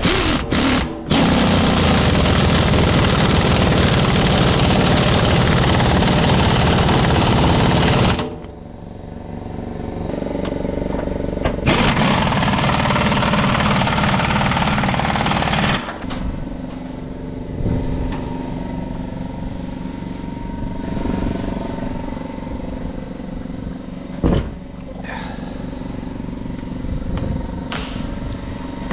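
1986 GMC General dump truck's engine running: loud for several seconds from about a second in, louder again for a few seconds mid-way, then settling to a steadier, quieter idle.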